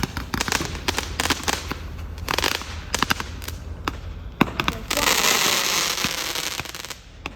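Fireworks going off: a rapid, irregular string of sharp pops and cracks, then about five seconds in a dense two-second crackling hiss, the loudest part, that cuts off sharply near the end.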